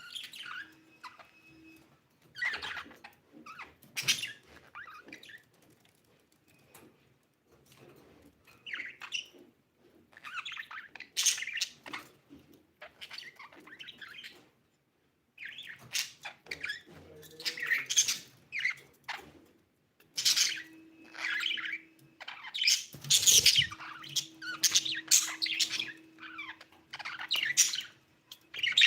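Budgerigar chirping and chattering in irregular bouts of quick high-pitched chirps and warbles, with a short pause about halfway through.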